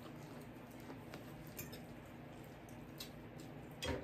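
Faint eating sounds: quiet chewing with a few light clicks, and a soft low knock near the end.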